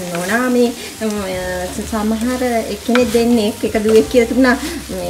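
Wooden spoon stirring soya meat curry in an unglazed clay pot, scraping the pot with a pitched squeal that bends up and down with each stroke, over the sizzle of frying.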